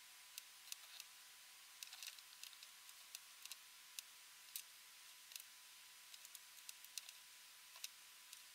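Small, sharp clicks and ticks at irregular intervals, a couple a second, as component leads and brass pins are handled and pushed into a small etched circuit board by hand, over a faint hiss.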